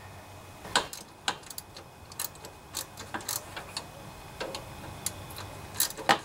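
Sharp metallic clicks and ticks at irregular intervals from a hand wrench working a half-inch mounting bolt on a riding mower's hydrostatic transaxle.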